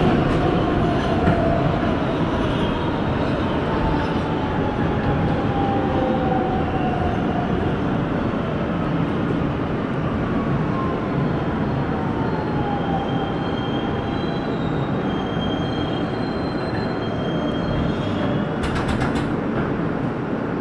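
R160B Siemens subway car heard from inside, running steadily on the rails with a falling motor whine as it brakes into a station. A short hiss comes near the end as the train comes to a stop.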